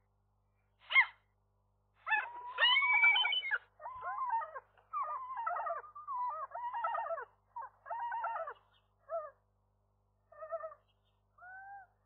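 Common gulls calling: one short call, then a long run of calls from about two seconds in until about nine seconds, trailing off into a few short, separate calls.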